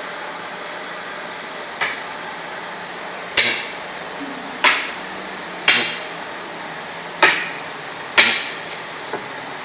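Makruk pieces set down on the board, seven sharp clicks at uneven intervals about a second apart as moves are played out.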